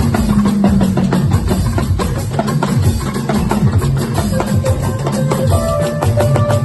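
Music driven by a busy, steady drum and percussion beat over strong low notes.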